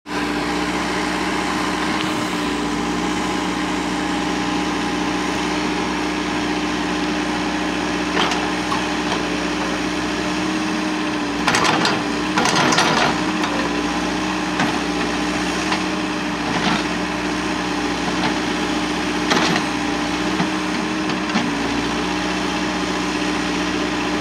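Caterpillar backhoe loader's diesel engine running steadily while the backhoe digs. Sharp clanks and knocks come a few times, most of them around the middle.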